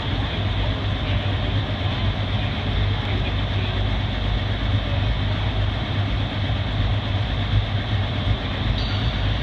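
International Harvester 1066 pulling tractor's diesel engine running loud and steady, with a strong low hum.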